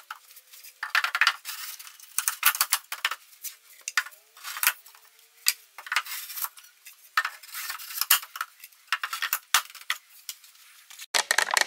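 Loose shelf boards clacking against each other and knocking onto small metal shelf pegs as they are set into a cube bookcase: an irregular run of sharp clicks and knocks.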